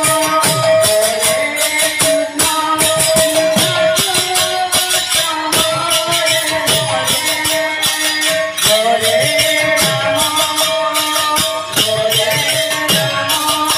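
Sankirtan music: a mridanga barrel drum played in fast patterns, its bass strokes sliding down in pitch, under rapid clashing of hand cymbals, over a held, sustained melody note.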